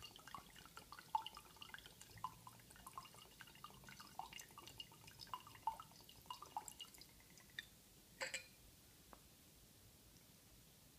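Faint dripping and dribbling of red wine as a thin stream runs from a bottle, through a hole drilled in its stuck cork, into a partly filled wine glass. The pour trails off, with a short knock about eight seconds in.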